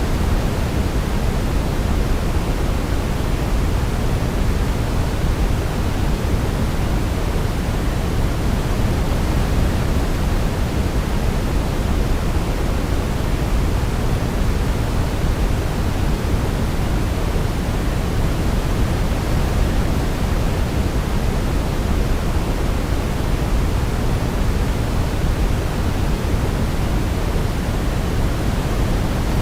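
Steady sleep-aid noise, even and unchanging, heavier in the low end than pure white noise, like pink noise. No melody can be made out over it.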